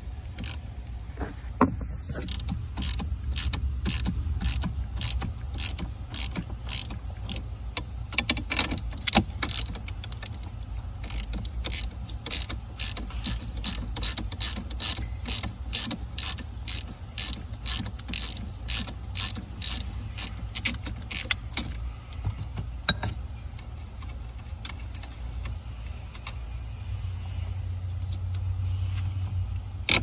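Socket ratchet clicking steadily, about two clicks a second, as a nut on a stud of the car's battery fuse block is turned through an extension. There is a short pause around ten seconds in, and the clicking stops a little past twenty seconds, over a low steady hum.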